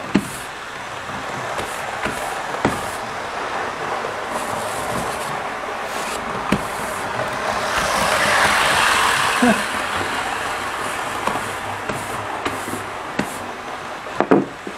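Stiff-bristled hand brush sweeping across a wooden board: a steady rustle of bristles on wood, louder about eight seconds in, with a few light knocks as the brush strikes the board.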